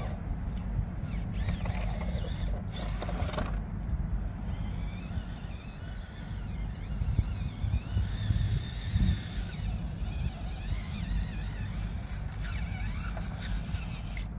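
Small electric motor and gears of a 1:18 scale RC crawler whining, rising and falling in pitch as it is driven, over a steady low rumble.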